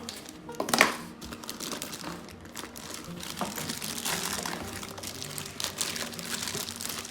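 Packaging crinkling and rustling as it is handled, with a sharp knock about a second in.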